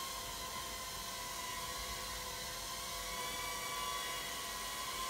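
Sky Viper M550 nano quadcopter's tiny motors and propellers whining steadily in flight, the pitch wavering slightly as it hovers and moves.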